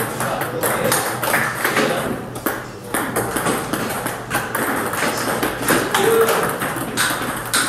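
Table tennis balls clicking: sharp, irregular pings of celluloid balls striking paddles, table and floor.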